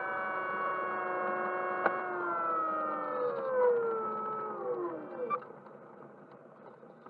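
Small electric motors whining at a steady speed, then spinning down over about three seconds until they stop. A sharp click comes just before the wind-down begins.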